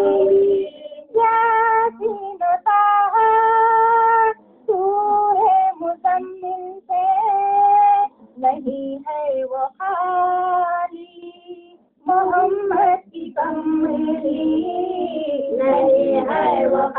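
A high solo voice singing a naat, an Urdu devotional song in praise of the Prophet Muhammad, in long held and ornamented phrases with short breaks between them.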